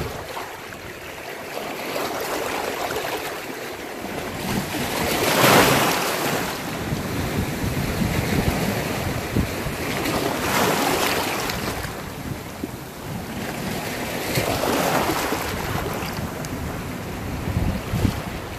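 Sea waves washing against a rocky shore, the surf swelling three times about five seconds apart, with wind rumbling on the microphone.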